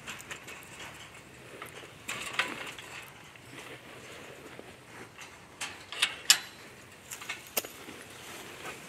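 Chain-link fence gate and its metal latch rattling and clanking as the gate is unlatched and swung open: a handful of sharp metallic clanks, the loudest about six seconds in.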